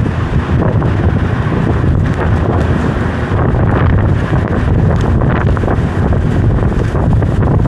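Strong mountain wind buffeting the microphone: a loud, continuous rumbling roar that flutters with the gusts.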